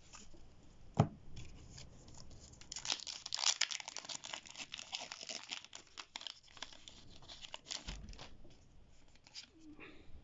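Foil Pokémon booster pack wrapper being torn open and crinkled by hand, a dense run of crackling tearing and rustling from about three to eight seconds in. A single sharp knock about a second in is the loudest sound.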